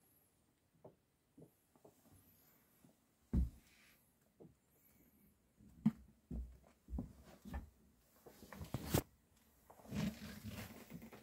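Irregular knocks, bumps and rustling from a person moving about inside a small boat cabin, with camera handling noise; the loudest thumps fall about three and a half, six and nine seconds in, with a burst of rustling near the end.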